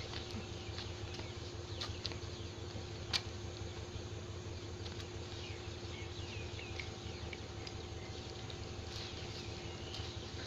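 Quiet railway platform ambience at night: a steady low hum under scattered short high chirps, with one sharp click about three seconds in.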